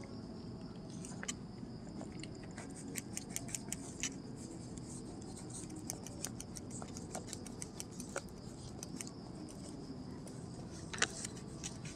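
Pen scratching and tapping on paper held on a clipboard: short, irregular drawing strokes, thickest about three to four seconds in, with one louder stroke near the end.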